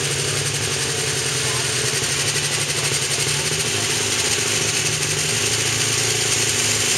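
Light super stock pulling tractor's engine running steadily at the starting line, with a strong hiss over it, getting a little louder after about two seconds.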